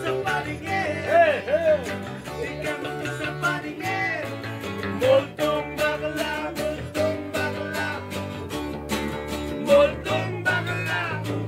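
Acoustic guitar strummed in a steady rhythm, with an electric bass holding low notes underneath and a wavering melody line above.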